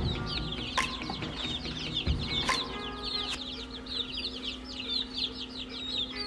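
A brood of young chicks peeping: quick, high cheeps, several a second and overlapping. A steady low hum runs underneath, with a few sharp clicks.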